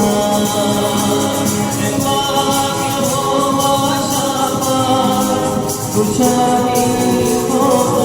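Christian worship song: voices singing long held notes over instrumental accompaniment, with a steady percussion beat.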